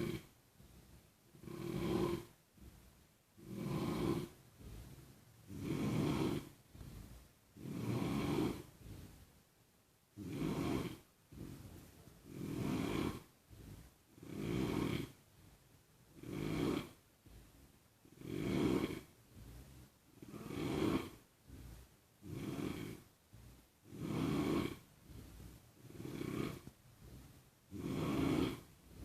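A sleeping person snoring steadily, one snore about every two seconds, with a slightly longer pause about ten seconds in.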